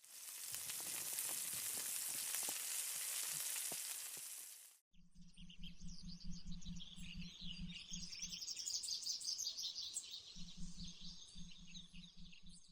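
Meat sizzling and crackling on a grill for nearly five seconds, then a sudden cut to birds chirping in the forest over a low, rapid pulsing tone of about four beats a second.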